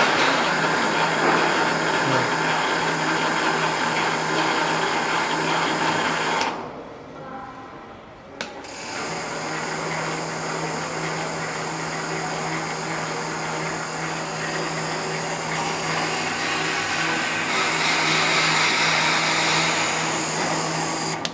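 WEISS WBL290F metal lathe running with its spindle turning and the tool cutting metal. About six seconds in the sound drops away, a click follows, and the lathe starts up again and runs steadily, with a brighter hiss near the end.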